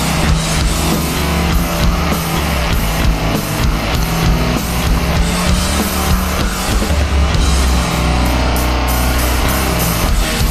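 Loud heavy rock music with guitar and a drum kit.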